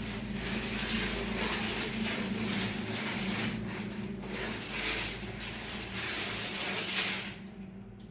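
Mechanical rattling and clicking over a steady low hum, fading out near the end.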